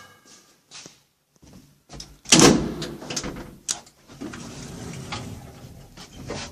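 Lift doors sliding and shutting: a loud thud a little over two seconds in, a few clicks, then a steady rumbling noise for a couple of seconds.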